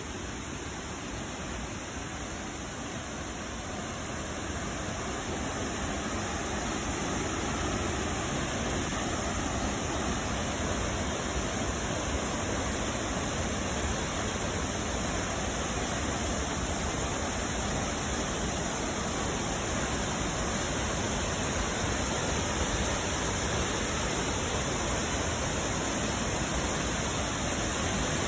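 Waterfall: a steady rush of falling water with no breaks, growing a little louder over the first five seconds or so and then holding level.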